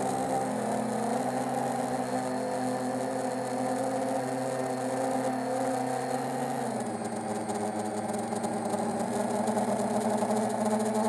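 Xing 2806.5 1300kv brushless motors and propellers of a 7-inch FPV quadcopter whining steadily in flight, heard from the onboard camera; the pitch steps down about two-thirds of the way through.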